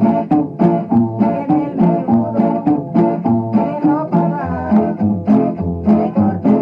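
Instrumental music led by plucked guitar, with a steady rhythm of picked notes over low bass notes.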